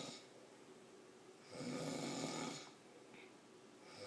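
A man snoring in his sleep, breathing in a slow rhythm: one full snore about a second and a half in, lasting about a second, with the end of the previous snore at the start and the next one beginning at the very end.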